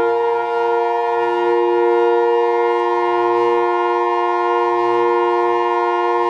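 Siren-like alarm tone sounding loud and steady: several pitches held together at once, not rising or falling.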